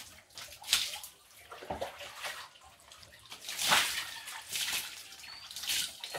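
Water poured from a plastic bowl over a dog being bathed, splashing onto a concrete floor in several separate pours, the loudest about four seconds in.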